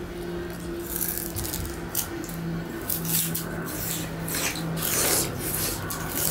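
Raw sugar cane being bitten and chewed: irregular crackly crunches, the loudest about five seconds in, over a steady low hum.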